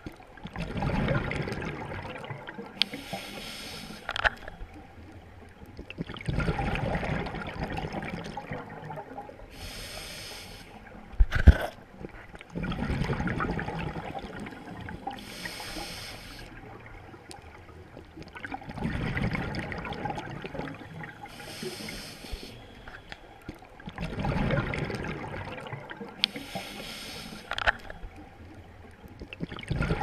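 Scuba diver breathing through a regulator underwater, about five breaths in slow rhythm. Each breath is a low bubbling rush of exhaled air followed by a shorter high hiss of inhaling through the demand valve. A single sharp knock comes near the middle.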